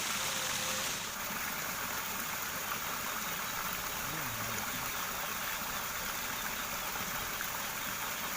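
Steady rush of water pouring out of a weir outfall into a ditch, with the top of the hiss easing slightly about a second in.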